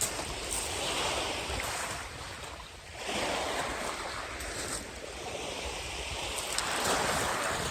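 Sea waves breaking and washing up a sandy beach, surging three times, with wind rumbling on the microphone underneath.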